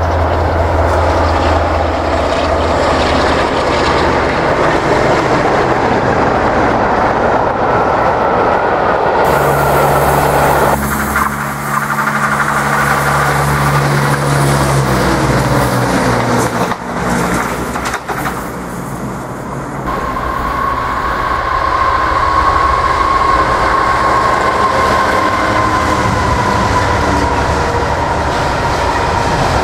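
Three passing trains in turn. First a diesel locomotive hauling coaches, a steady low engine hum. About nine seconds in, a Class 170 Turbostar diesel multiple unit passes with a pitched engine note. From about twenty seconds, a long train of coal hopper wagons rolls round a curve with a steady high-pitched wheel squeal over the rumble of the wheels.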